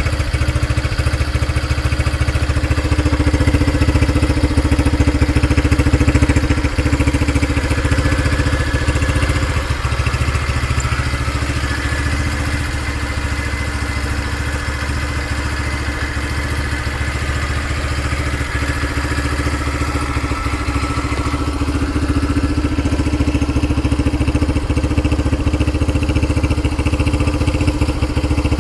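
2009 Honda Fan 125 single-cylinder four-stroke engine idling steadily through an aftermarket Roncar 'estralador' popping exhaust.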